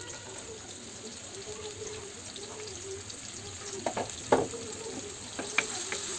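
Sliced onions sizzling in hot oil in a wok, a steady frying hiss with a few sharp crackles around four seconds in and once more shortly after.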